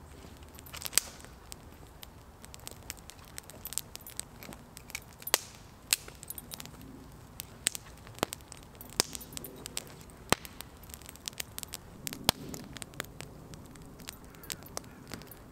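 Small wood fire of thin sticks crackling, with irregular sharp pops and snaps.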